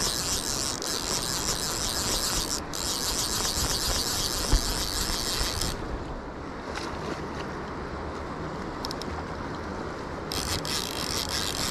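Fast river current rushing and lapping at the bank close to the microphone. About six seconds in, the sound goes dull and muffled as water washes over the microphone, then clears about four seconds later.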